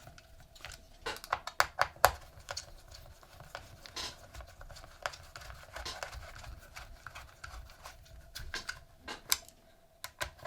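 Small sharp clicks and taps of an Allen key and metal bolts against the Scorpion Evo's receiver as the 3mm Allen head bolts are tightened down, a quick cluster of clicks in the first two seconds, then scattered ticks.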